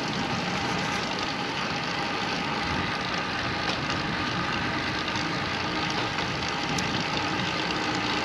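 Steady rushing wind and road noise from riding a road bicycle, with faint steady humming tones underneath.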